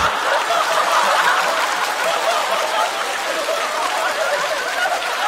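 Studio audience laughing and clapping, easing off slightly toward the end.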